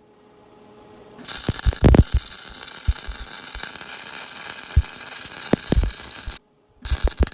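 Electric arc welding on a cast-iron part: a steady crackling hiss with sharp pops, starting about a second in, cutting off abruptly, then returning briefly near the end.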